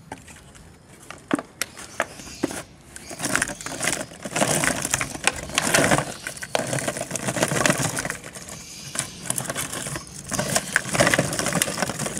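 Plastic-packed cone jelly cups tumbling out of a plastic jar and clattering onto a plastic tray: a few separate clicks at first, then from about three seconds in a dense rattle of many pieces landing and sliding over one another.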